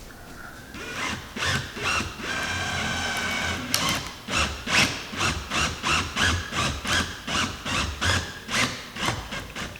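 Screws being driven into a fiberglass boat gunnel to mount a rod buckle: a driver whirs steadily for about a second and a half, then the screws turn in short, squeaky, grating strokes, about two or three a second.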